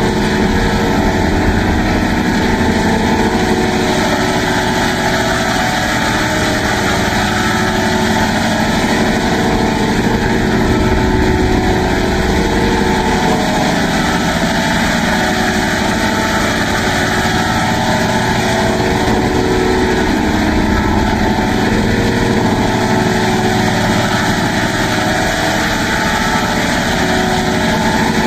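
Loud, steady, buzzing drone with a fast flutter running through it, engine-like in character. It is an electronic 'crazy' sound effect.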